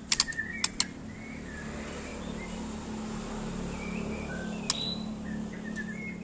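Young white-rumped shama chirping: short, scattered calls, with a few sharp clicks near the start and one near the end, over a low hum that swells and fades in the middle.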